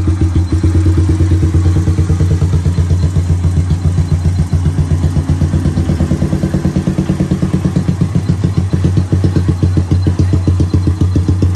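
Suzuki Raider 150's single-cylinder four-stroke engine idling through an aftermarket exhaust, with a steady, even pulse of about eight beats a second.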